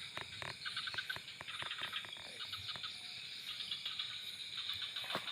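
Night insects, crickets chirping in rapid repeated pulse trains, with a few faint clicks mixed in.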